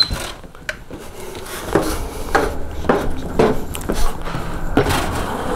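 RV entry door latch clicking open, then a series of footsteps, about two a second, as someone steps down and out, over a low outdoor rumble of traffic that grows louder toward the end.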